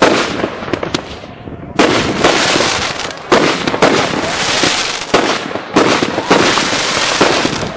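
Consumer aerial fireworks bursting overhead: a rapid series of sharp bangs about a second apart, with a continuous rush of noise between them.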